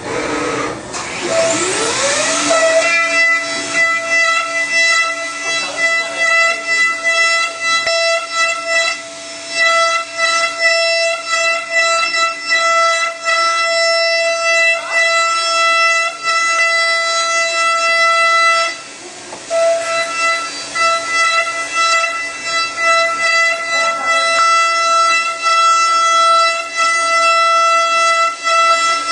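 End mill of a CNC milling machine cutting aluminium: a steady high-pitched whine with several overtones over a fine crackle of chips. The pitch rises at the start as the cut gets going, and the sound breaks off briefly about two-thirds of the way through before it resumes.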